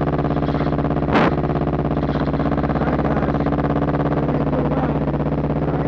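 Sport motorcycle engine idling steadily close to the microphone, with a fast, even pulsing beat. A single short knock about a second in.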